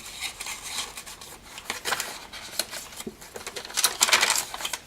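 Paper rustling and crackling as the pages, pockets and tags of a handmade junk journal are handled and turned. A denser, louder burst of crinkling comes a little before the end.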